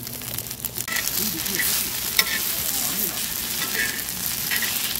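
Sundae and vegetable stir-fry sizzling in a hot pan while it is stirred, the sizzle swelling about a second in, with sharp clicks of the utensil against the pan, the loudest a little past two seconds in.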